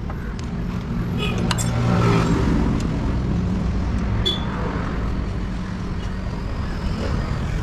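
A motor vehicle engine running steadily, with a low hum, over road traffic noise.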